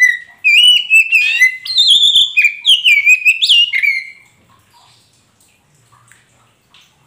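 Oriental magpie-robin (kacer poci) singing a loud run of quick, varied whistled notes that rise and fall, mixed with sharp clicking notes, for about four seconds before stopping.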